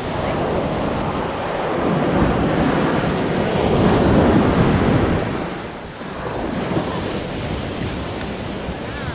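Ocean surf breaking and washing up the beach, with wind buffeting the microphone. The rush of water swells to its loudest about halfway through, then drops back briefly.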